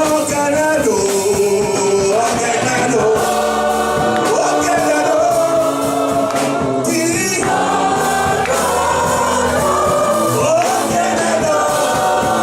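Gospel worship music: a choir and congregation singing over a live band.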